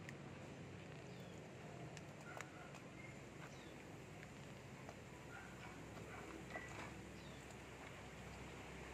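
Faint scattered clicks and crunches of cats chewing raw fish from a plastic tub, over a low steady background hum, with a few short faint bird chirps.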